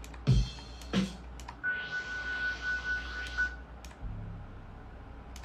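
Computer keyboard and mouse clicks while browsing for a sound, with a short sound being previewed in between: a hissing swell with one steady high tone lasting about two seconds, then a low hum near the end.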